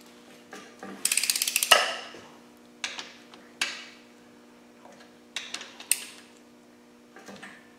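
Socket ratchet clicking as it is swung back, a quick run of clicks about a second in ending in a louder knock, then a few single clicks and taps, while the 14 mm main bearing cap bolts of a Land Rover 300Tdi block are nipped down evenly before final torquing.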